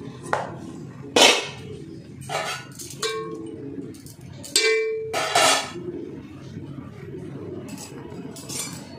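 Metal cooking pots and utensils clanging and knocking against each other. There are about half a dozen separate strikes, the loudest a little over a second in, and two of them ring on briefly with a clear metallic tone around three and four and a half seconds in. A steady low rumble runs underneath.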